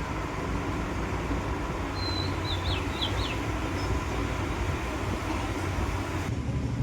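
An engine running steadily with a low, even rumble. A bird chirps a few times about two to three seconds in.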